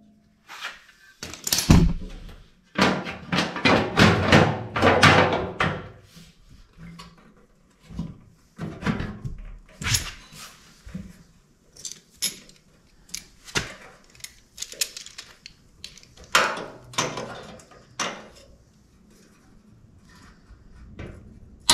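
A new steel floor pan half and outrigger being shifted and clamped together with locking C-clamp pliers: a run of knocks, thunks and sheet-metal rattles.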